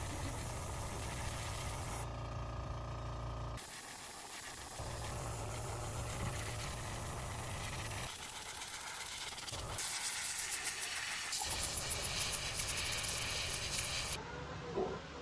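Airbrush spraying paint: a steady hiss of compressed air through the nozzle, in short stretches that start and stop abruptly. Near the end the hiss flutters rapidly.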